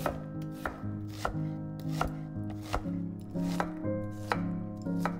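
Chef's knife dicing an onion on a wooden cutting board: a sharp knock of the blade on the board about every 0.7 seconds, with soft background music.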